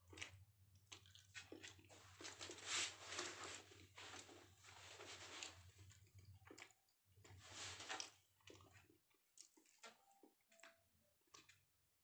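Faint eating sounds: a person mixing rice with his fingers on a plate and chewing, a run of soft wet smacks, squishes and crunches, thickest for a few seconds early on and again about eight seconds in.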